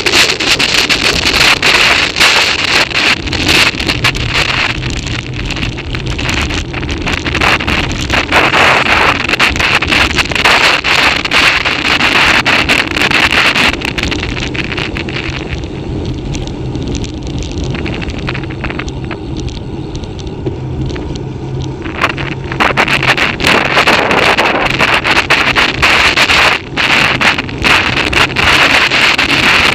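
Heavy wind buffeting on the microphone of a camera riding on a bicycle descending a mountain road at speed, with frequent knocks and clicks from the ride. The buffeting eases for several seconds about halfway through, then comes back as strong as before.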